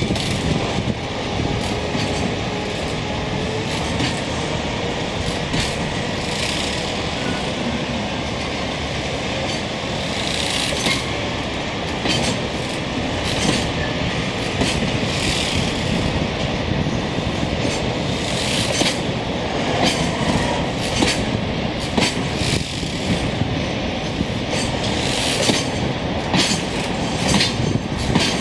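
A freight train of Taki 1000 gasoline tank wagons rolling past as it pulls out. A steady rolling rumble, with irregular sharp clacks as the wheels cross rail joints.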